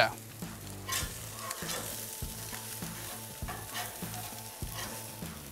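Red snapper collars sizzling on a hot gas grill while a metal spatula scrapes under them along the grates to flip them, with a few short clicks of the spatula against the grate. The spatula is prying loose fish skin that has stuck to the grates.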